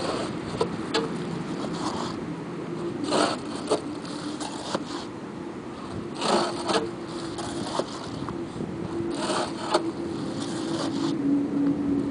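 Sun-dried adobe bricks scraping as they slide off a flatbed truck's bed, in three long scrapes about three seconds apart, with sharp knocks of brick on brick and wood between them.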